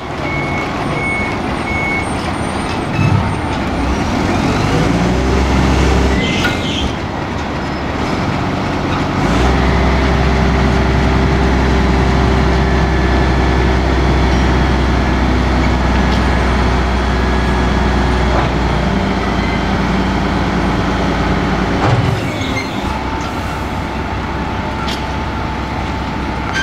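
Heavy diesel engines of a Kalmar container reach stacker and a container lorry running, their engine note rising and falling as they work. A series of high reversing beeps sounds in the first couple of seconds, and a few short knocks or hisses come through the engine noise.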